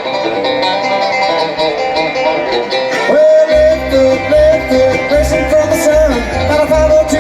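Live bluegrass band playing an instrumental passage: fast-picked banjo and guitar, with a held, bending melody line coming in about three seconds in and the bass joining just after.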